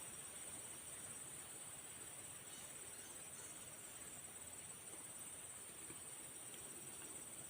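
Insects trilling steadily, a faint, high, rapidly pulsing trill over quiet outdoor hiss.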